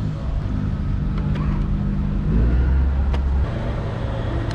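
An engine running steadily with a low hum. Its tone shifts about two and a half seconds in, and the deepest part drops away about a second later.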